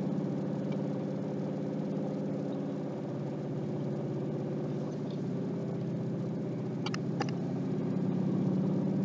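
A vehicle's engine and road noise heard from inside the cab while driving: a steady low hum. Two light clicks come about seven seconds in.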